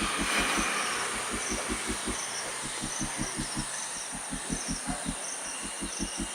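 Steady hiss of a covered pot cooking over a high gas flame on the stovetop, with a soft low pulse about five times a second underneath.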